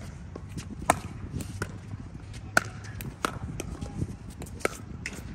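Pickleball rally: paddles striking the plastic ball in sharp pops, roughly one every second, with fainter clicks between.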